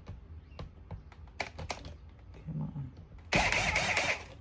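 A power drill running for about a second, about three seconds in, backing out the screw that holds a vacuum's cord hook. Before it, light clicks and taps of plastic parts being handled.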